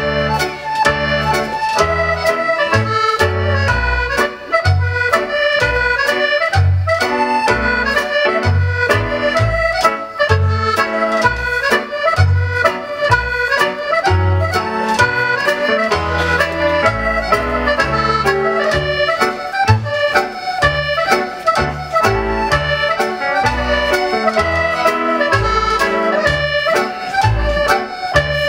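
Accordion-led Scottish country dance music playing a strathspey, with a regular bass beat under the melody.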